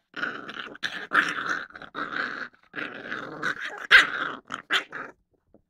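A dog growling in a run of short bouts with brief breaks between them, with one louder sharp outburst about four seconds in. It is an annoyed dog growling at being teased.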